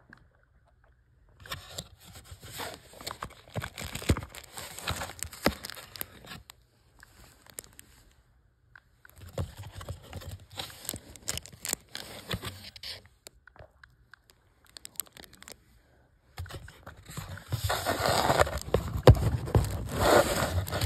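Handling noise: paper towel and a cardboard box rustling and scraping, with sharp little clicks. It comes in three bursts with short quiet gaps, and the last burst is the loudest, with fingers rubbing close to the microphone.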